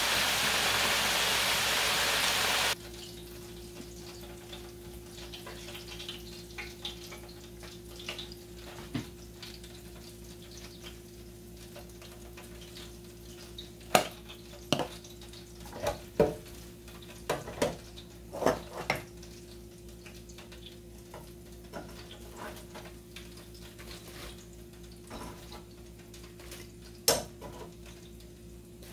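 Chicken wings sizzling in hot oil in an electric deep fryer, cutting off abruptly about three seconds in. After that a steady low hum with scattered sharp clinks and knocks, the loudest about halfway through.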